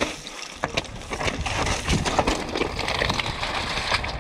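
Mountain bike descending a loose rocky trail: tyres crunching over slate and gravel, with many irregular clattering knocks from the bike rattling over the rocks.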